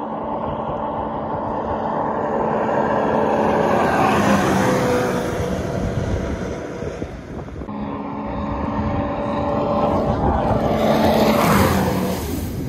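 Sea-Doo personal watercraft engine running on the water with spray and wind noise. The engine swells in loudness, eases off around the middle, and swells again near the end.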